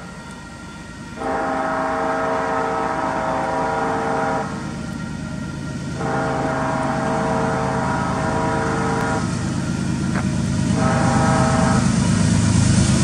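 Union Pacific diesel freight locomotive's air horn sounding three long chord blasts, separated by short gaps, as the train approaches. Beneath the horn the low rumble of the locomotives' diesel engines grows louder near the end.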